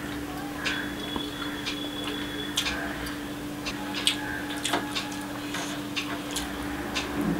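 Close-up eating sounds: irregular wet clicks and smacks from chewing and from fingers working fried rice on a plate, over a steady low hum.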